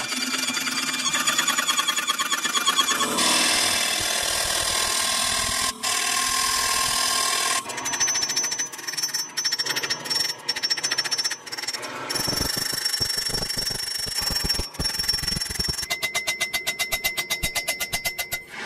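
Sped-up forging of a steel knife blade: runs of hammer blows on hot steel over an anvil, cut between stretches of dense machine noise, ending in a fast run of ringing strikes.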